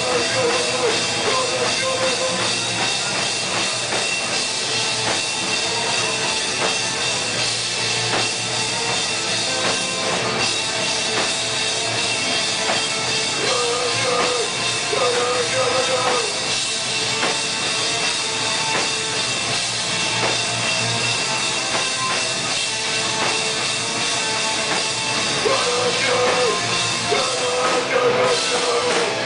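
Live sludge metal band playing: distorted guitars, bass and drum kit in a loud, dense wall of sound.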